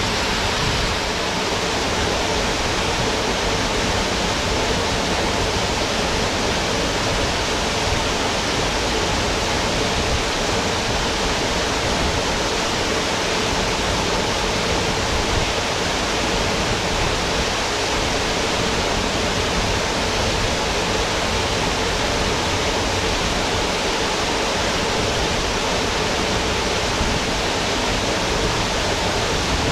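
Waterfall: a steady, dense rush of falling water that holds the same level throughout.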